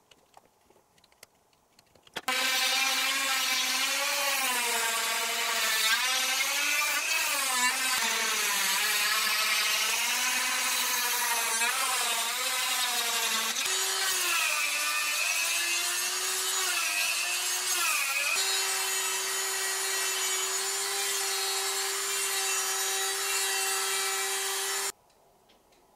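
Handheld rotary tool with a sanding drum grinding the inside of a wooden gear ring. Its motor whine wavers up and down in pitch as the drum bears on the wood, then settles at a steady, higher pitch for the last several seconds and cuts off suddenly. Before it starts there are a few faint clicks from a knife carving the gear teeth.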